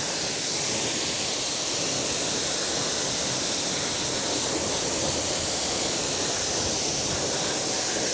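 Pressure washer spraying through a bent wand onto a car wheel: a steady hiss of high-pressure water rinsing wheel cleaner off the wheel.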